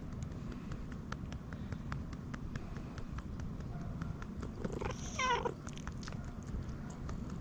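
Tabby-and-white stray cat giving one short, wavering, pigeon-like call about five seconds in, its response to being patted quickly on the rump. Quick, even pats of a hand on its back sound as soft taps throughout, about four a second.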